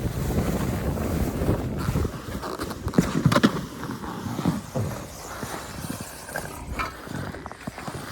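Wind buffeting the microphone while moving on the snowy hill, with a few sharp scrapes; heavier in the first half, easing after about four seconds.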